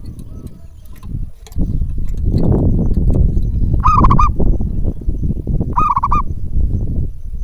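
Zebra dove (perkutut) giving two short quavering coos about two seconds apart, over a low rumble of wind on the microphone.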